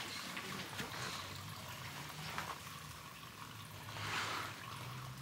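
Faint trickling water, with a brief louder swish about four seconds in.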